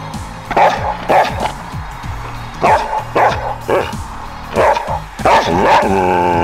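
Samoyed giving a string of short barks, about seven, then near the end breaking into a long, wavering howl, over background music.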